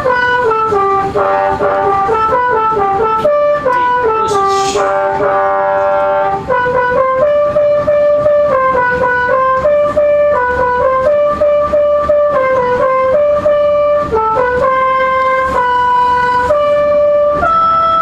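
A bus telolet horn, a set of multi-tone air horns, plays a tune. It sounds a continuous run of stepped notes: short quick notes at first, then longer held ones. A short hiss comes about four and a half seconds in.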